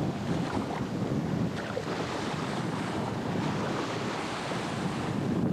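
Ladoga-2 waterjet boat with a Nissan car engine under way: a steady rush of water and engine noise, with wind buffeting the microphone.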